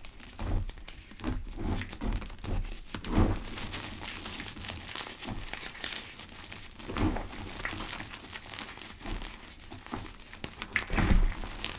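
Gym chalk pebbles crushed and rubbed between the fingers close to the microphone, making irregular soft crackles and crunches, with heavier squeezes about three, seven and eleven seconds in.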